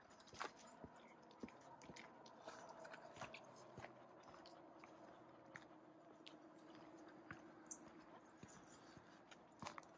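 Faint, irregular crunching and clicking of footsteps on a dirt trail, close to near silence.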